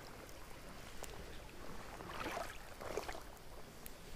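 Shallow stream water sloshing and splashing softly, with two slightly louder swashes about two and three seconds in.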